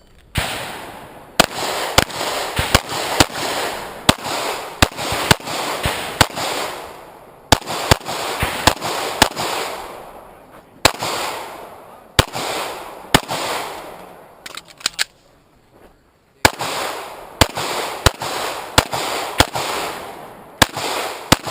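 Pistol fired in a fast competition string, dozens of shots about half a second apart, each with a short echoing tail, broken by brief pauses and one longer pause about two-thirds of the way through.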